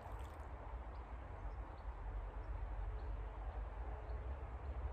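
Steady rush of flowing river water, with a low rumble underneath.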